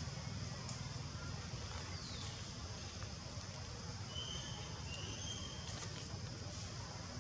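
Faint outdoor ambience: a steady low rumble, with a short falling whistle about two seconds in and a few faint high chirps a couple of seconds later.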